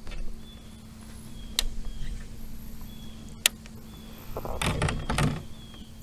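A couple of sharp clicks, then a short burst of splashing and knocking about three-quarters of the way in, as a small northern pike is handled and let go at the side of a kayak.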